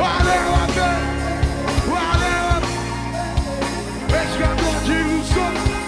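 Rock song with a sung melody over a steady bass line and regular drum hits.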